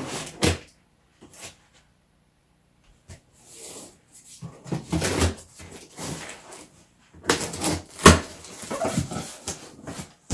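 Packing tape on a large cardboard box being slit with scissors and pulled, and the flaps worked open: bursts of scraping, tearing and cardboard rustle, the loudest a sharp knock about eight seconds in.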